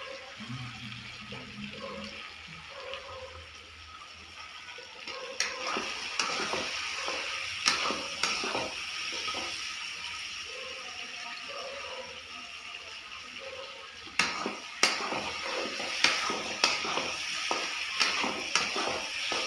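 Chicken curry sizzling and frying in a metal kadai on a gas burner, while a spatula stirs it and knocks and scrapes against the pan. The spatula strikes come more often from about two-thirds of the way in.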